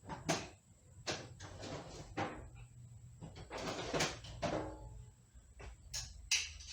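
Irregular metal clanks and scrapes of tools handled and worked against a C6 automatic transmission while the stuck pump is being freed, one clank about four seconds in followed by a short ring.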